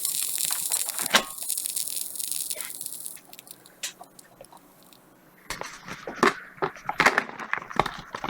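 Faulty Macintosh LC power supply, powered up, hissing and crackling, likely arcing, which cuts off about three seconds in; clicks and knocks of handling follow near the end. The repairer traces the fault to a shot transformer winding.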